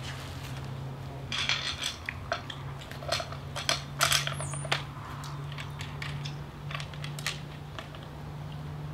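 Irregular metal clinks and clicks from a chainsaw guide bar and parts being handled and fitted onto the saw's powerhead, over a steady low hum.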